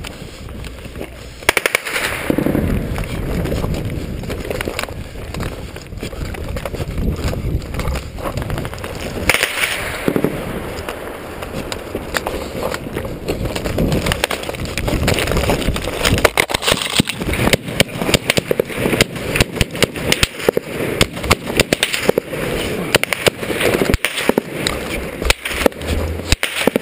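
Small-arms and machine gun fire in a firefight: shots crack out in rapid, overlapping bursts, thickening into a dense rattle through the second half.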